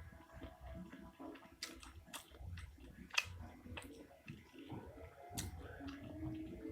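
Close-up eating sounds: pentol mercon meatballs being chewed with wet, soft mouth noises, broken by several sharp clicks, the loudest about three seconds in.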